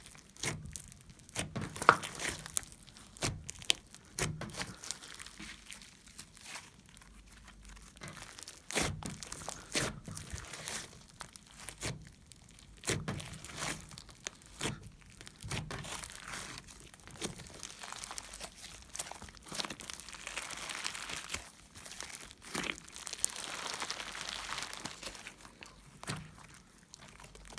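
Hands squeezing, stretching and folding homemade slime, giving irregular wet crackles, pops and clicks, with a denser crackling stretch near the end.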